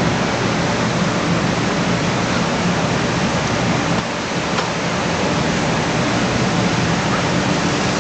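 N700 series Shinkansen trainset rolling past at close range, a steady rushing noise of wheels and running gear.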